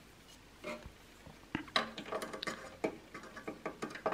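Scattered light clicks and taps as a DDR4 memory module is turned round and handled against the motherboard's RAM slots, coming more often from about a second and a half in.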